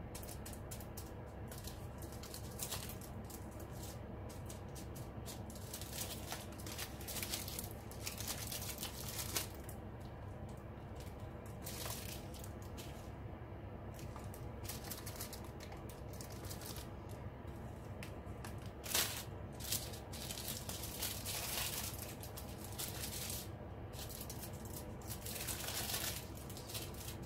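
Small plastic bags of square diamond-painting drills crinkling and rustling in irregular bursts as they are picked up, handled and laid down on a table, over a steady low hum.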